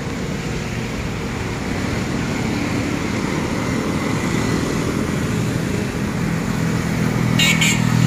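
Road traffic of cars and motorcycles passing on a winding road, with the engine of an approaching vehicle growing louder toward the end. Two short sharp high sounds come in quick succession near the end.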